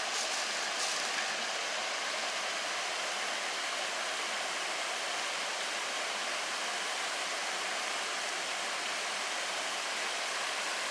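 A small stream tumbling down a stepped waterfall over stone ledges: a steady rushing of water.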